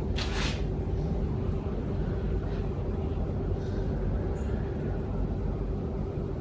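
Steady low mechanical rumble with a constant hum, and a brief hiss about a quarter second in.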